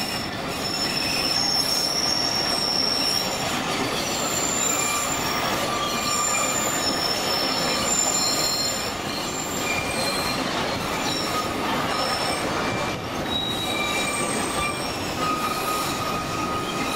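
Narrow-gauge train cars rolling along a curving track: a steady rumble of wheels on rail, with thin, high-pitched squeals from the wheels grinding against the rails on the curve that come and go.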